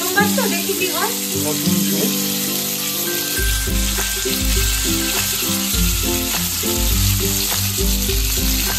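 Leaf-wrapped egg parcels sizzling steadily in hot oil in a frying pan. Background music with a repeating bass beat comes in about three seconds in.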